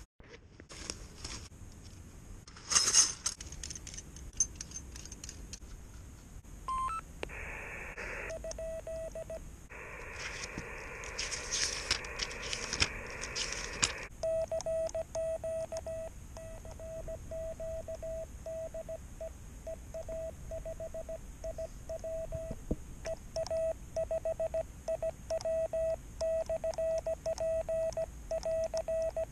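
Morse code being sent on a Yaesu FT-817ND transceiver: its sidetone, a single steady beep keyed on and off in dots and dashes, fills the second half, with the receiver hiss silent while it sends. Before that comes hiss from the radio's speaker, with some clicks and rustles.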